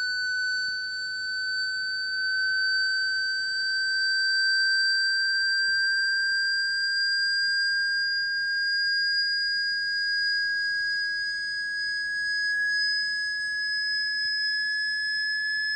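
Synthesised water-eject tone: a steady, high-pitched sine tone that slowly rises in pitch. It is played through a phone speaker to vibrate trapped water out of the speaker.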